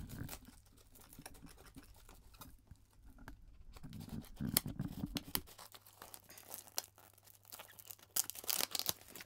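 Plastic packing tape on a cardboard box being slit with scissors and torn open: scraping and crackling as the blade runs along the seam, with louder rips about four seconds in and again near the end.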